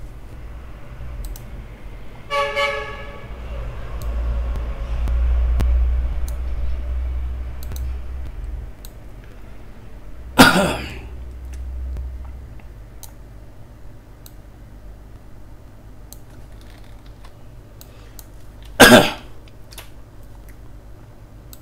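Scattered, faint computer keyboard and mouse clicks over a low rumble. A short pitched toot comes about two seconds in, and two loud short noises come about halfway through and near the end.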